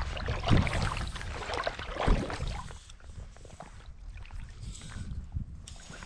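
River water sloshing and swishing around an angler's legs as he wades through shallow flat water, louder for the first three seconds and then settling to a quieter lapping as he stands still.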